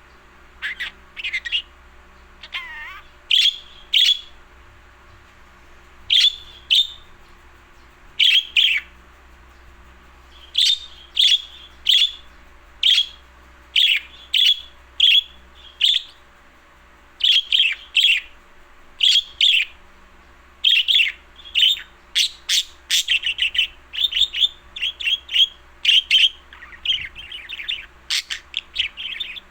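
A pet bird chirping over and over in short, sharp calls, about one or two a second, coming faster in quick runs toward the end.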